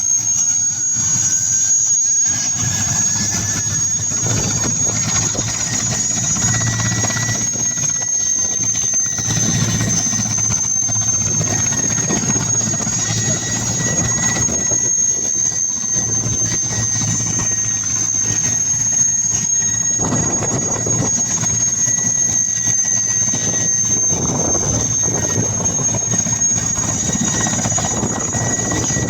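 Helicopter running, with a high steady turbine whine over the rotor noise. A second, lower whine rises in pitch over the first several seconds and then holds.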